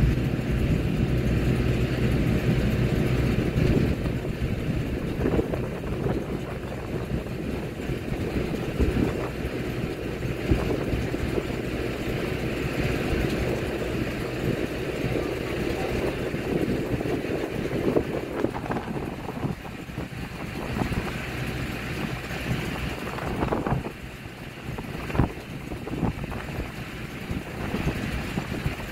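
Wind buffeting the microphone over a steady low mechanical hum, with a few sharp bumps in the second half.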